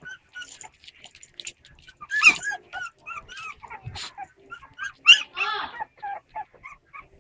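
Puppies whimpering and yipping in many short, high-pitched cries, with louder yelps about two seconds and five seconds in.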